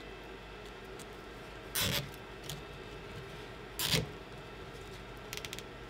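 Hands working a cable tie around a braided cable sleeve: two short rustling scrapes about two seconds apart, then a quick run of small clicks near the end.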